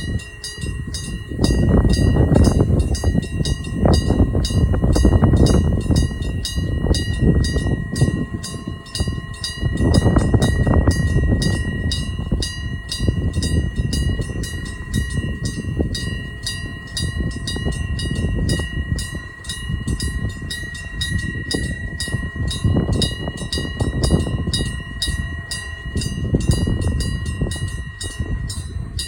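Japanese railway level-crossing alarm sounding its regular, rapid 'kan-kan' clang without a break. Under it, a train rumbles through the crossing in swelling waves of low noise.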